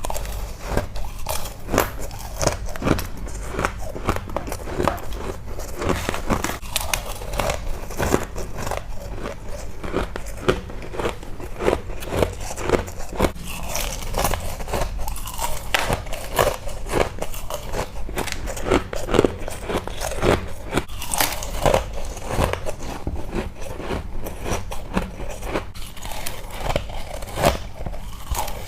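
Ice being bitten and chewed up close: crisp, irregular crunches and cracks of freezer frost and ice, following one after another.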